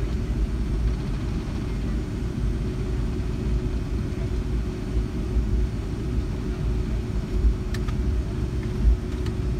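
Inside the cabin of a taxiing Boeing 757-200: a steady low rumble from the idling jet engines and rolling airframe, with a steady hum above it. Two faint clicks come near the end.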